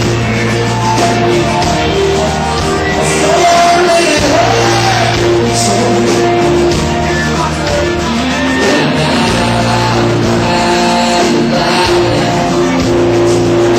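A live country-rock band playing loudly, with held guitar notes over a steady bass line and a few bending lead notes about four to five seconds in.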